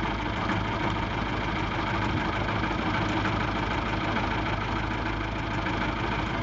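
1940 Aeronca 65TC's four-cylinder Continental A-65 engine and propeller running steadily, with no change in pitch or loudness.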